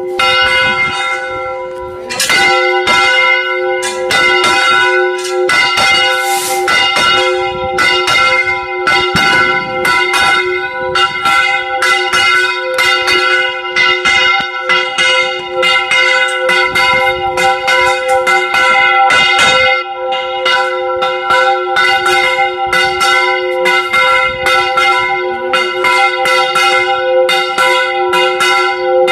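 Several church bells rung by hand close up from inside the bell tower in a Mexican festive repique: rapid strikes, several a second, from clappers worked by ropes, overlapping into a continuous loud ringing.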